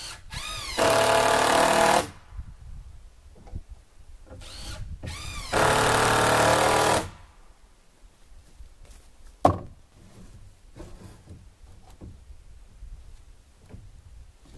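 Hand-held power drill run twice into a wooden board, in two bursts of about a second each, each starting with a short whine as the motor spins up. A single sharp knock follows about nine and a half seconds in.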